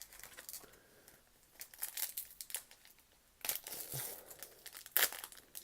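Wrapper of a basketball trading-card pack crinkling and tearing as it is pulled open by hand, in several irregular bursts, the loudest near the end.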